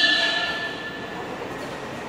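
NYC subway 1 train in the station: a high steady wheel squeal dies away in the first half second, leaving the train's fainter steady rumble.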